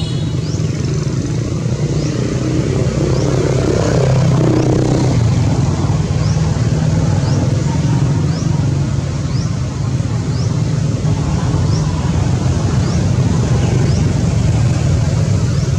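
Steady low rumble, with a short high rising chirp repeating about once a second.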